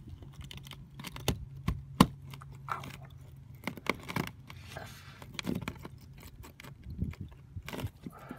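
A knife being worked into a sea urchin's shell: irregular sharp clicks and scrapes of the blade against the shell and spines, the loudest about two seconds in. The knife is too small for the job.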